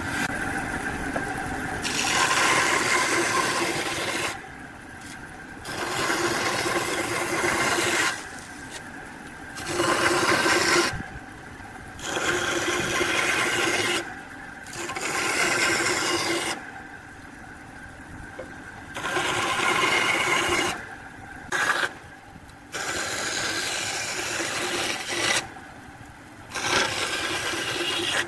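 Bandsaw cutting a glued-up hardwood block in a string of short straight relief cuts. Each cut is a rough rasping scrape lasting two to three seconds, and the sound drops back between cuts, about nine times over.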